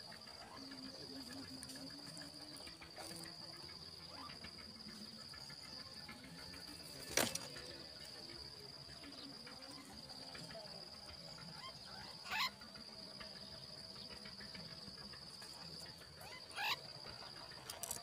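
Steady high-pitched drone of insects, broken off briefly twice. Three short sharp sounds stand out above it: the loudest about seven seconds in, and two smaller ones near the end.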